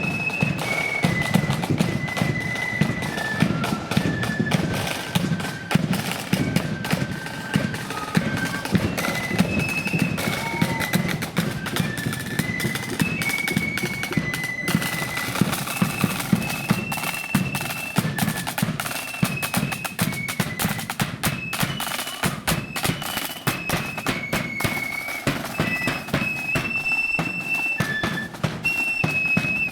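Loyalist flute band playing a march: flutes carry a high melody in unison over rapid snare drum strokes and a heavy bass drum.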